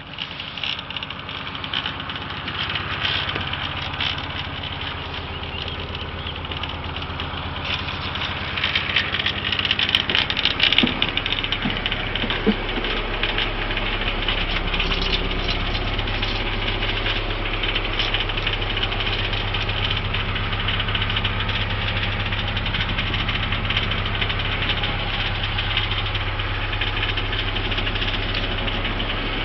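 A narrowboat's diesel engine idling steadily. It gets somewhat louder and heavier about halfway through.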